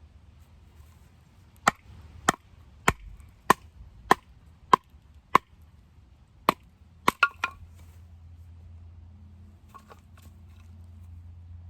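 Batoning: a baton striking the spine of a fixed-blade Scandi-grind knife to drive it through wood, a run of about ten sharp wooden knocks roughly every half second or so, with a quick cluster of three near the end before they stop.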